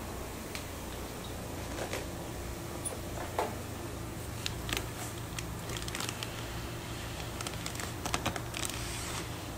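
Plastic fish-shipping bags and a cardboard box being handled, making scattered light crinkles and clicks over a steady low hum.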